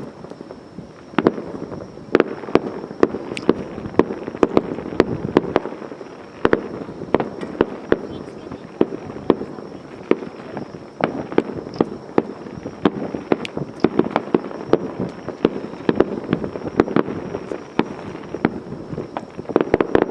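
Fireworks display: a rapid, continuous barrage of shell bursts and sharp crackling reports, several a second, over a rolling rumble. It grows louder about a second in.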